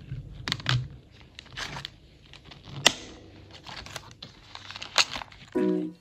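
Plastic cash envelopes rustling and clicking as they are handled and fitted onto a wallet's metal binder rings, with one sharp click about three seconds in. Music starts just before the end.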